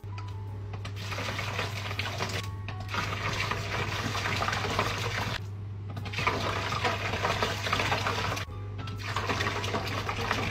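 Iced coffee poured from a bottle into a stainless steel sink over ice, splashing in four pours of about two seconds each with short breaks between.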